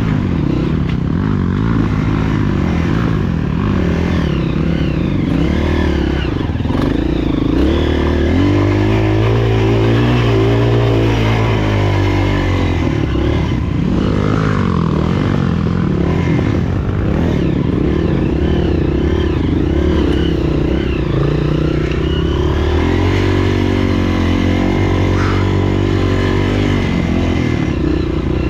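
Honda CRF230F's air-cooled single-cylinder four-stroke engine running, its revs rising and falling and held higher for a few seconds near the middle.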